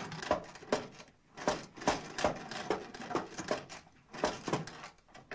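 La Populaire, a small French hand-operated sewing machine, worked by pushing its plunger down: a mechanical clack with each stroke, about two a second, somewhat uneven.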